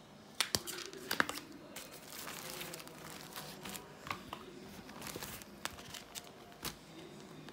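Hands flexing a clear TPU phone case and fitting it onto a smartphone: rustling plastic handling noise with sharp clicks, the loudest about half a second and a second in, and a few smaller clicks later on.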